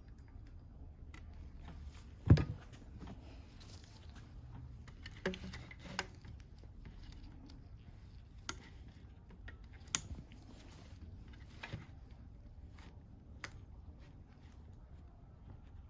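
Scattered light clicks and knocks of tools and parts being handled on a work surface, with one louder knock about two seconds in.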